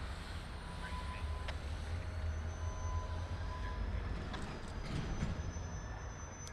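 Freight train moving slowly on the track, a steady low rumble with a few thin, steady high squeals over it.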